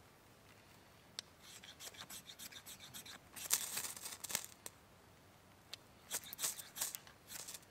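Knife spine scraped down a ferrocerium rod to throw sparks onto a pile of wood shavings for fire-lighting: a string of short, light scrapes, then a longer, louder stretch of strokes about halfway through, then a few more scrapes near the end.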